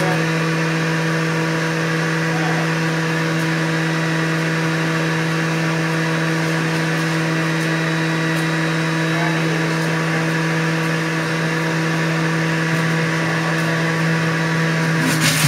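Juiceman centrifugal juicer's motor running at a steady hum while produce is pushed down the feed chute to be grated, with a brief louder rattle near the end.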